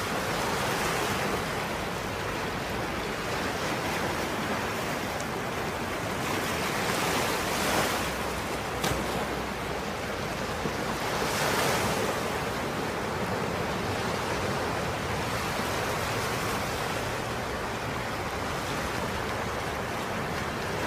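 Small waves washing onto a sandy beach: a steady surf hiss that swells louder twice as waves break. One short sharp click near the middle.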